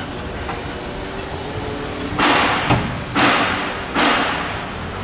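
Loaded hand pallet truck rolled onto the steel base of a pallet clamp changer: three short noisy clattering bursts about a second apart, each fading quickly, with a sharp knock between the first two.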